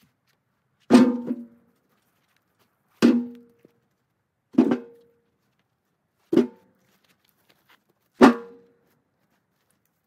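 Firewood rounds dropped one at a time into the steel front-loader bucket of a Kubota B2601 tractor. There are five thunks, one every one and a half to two seconds, each with a brief ring from the bucket.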